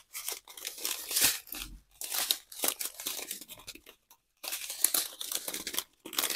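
Small clear plastic zip-lock bags of diamond painting drills crinkling as they are handled and flipped through, in irregular bursts with short pauses about two and four seconds in.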